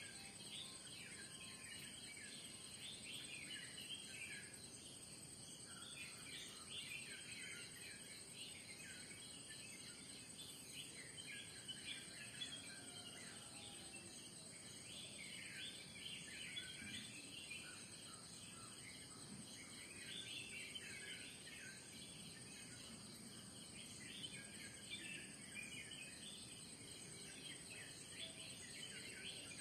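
Faint dawn chorus of many small birds chirping in short, overlapping calls, over a steady high-pitched insect drone.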